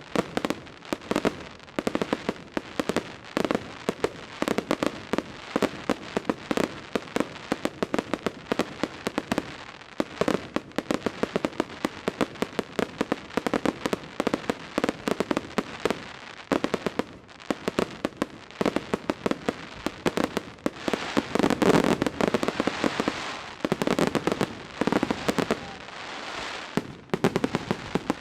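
Fireworks display: a rapid, unbroken string of bangs and crackling bursts, densest and loudest about two-thirds of the way through.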